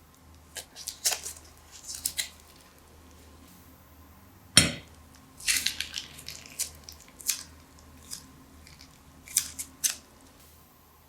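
Crunchy slime made with pieces of plastic bag, being handled with crisp crackles and snips: irregular clusters of sharp clicks, with one louder snap about four and a half seconds in.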